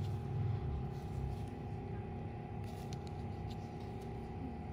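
Steady background hum with a low rumble, stronger in the first second or so, and a few faint clicks near the middle.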